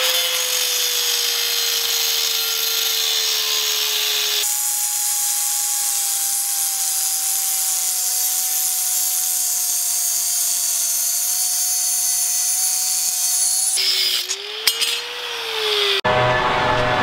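Ryobi corded angle grinder with a cut-off disc cutting a steel bar: a steady high whine over a grinding hiss. The whine jumps higher about four seconds in, and the sound breaks off abruptly near the end.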